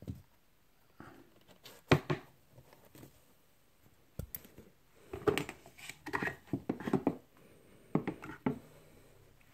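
Handling noises: a string of knocks, clicks and rustles, with one sharp knock about two seconds in standing out as the loudest and a dense run of rustling clicks from about halfway on.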